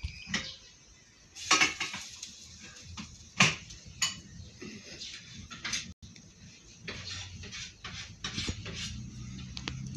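Keys on a keyring clinking and rattling in irregular sharp clinks as a puppy bites and paws at them, the loudest about one and a half and three and a half seconds in.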